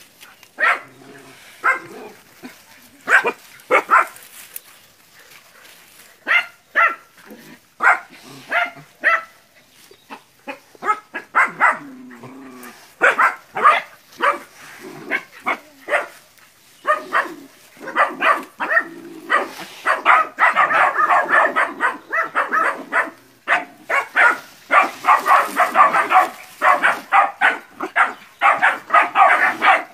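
A litter of puppies barking and yapping as they bay at a water buffalo: short, high, sharp barks, scattered at first, then many dogs overlapping in near-continuous barking from a little past halfway.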